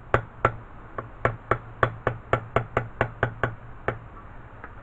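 Light, repeated hammer taps on a socket used as a seal driver, pressing a seal into a transmission case: about fourteen sharp taps, roughly four a second, stopping about four seconds in.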